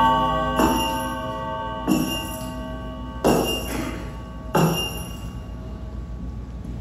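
A bell tolling: four evenly spaced strikes about a second and a third apart, each ringing on and fading, after a first strike still ringing as the sound begins.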